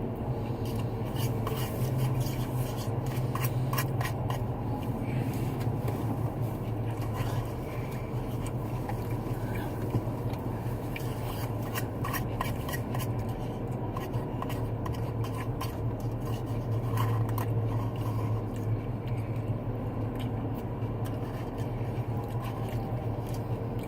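A spoon scraping and clicking against a small cup of coleslaw during eating, repeated short clicks and scrapes that thin out in the second half, over a steady low hum.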